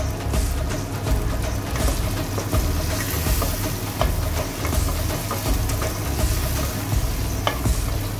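Background music with a deep, shifting bass, over a spoon stirring chickpeas and vegetables in a steel pot, with a few sharp knocks of the spoon against the metal.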